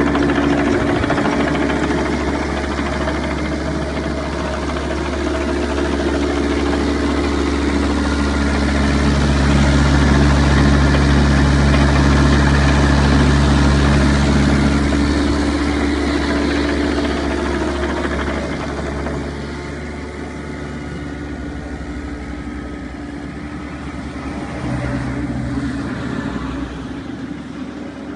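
Hitachi ZX-30 mini excavator's diesel engine idling steadily, heard close by at the undercarriage. It grows louder in the middle and eases off a little after about twenty seconds.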